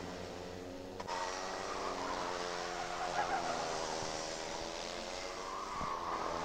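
Racing karts' two-stroke engines running at high revs, a buzzing whine whose pitch falls and rises again. The sound changes abruptly and gets a little louder about a second in.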